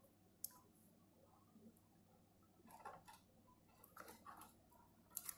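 Near silence, with a few faint, short ticks and rustles as a wire and soldering iron are handled on an amplifier circuit board, the slightly sharper tick coming near the end.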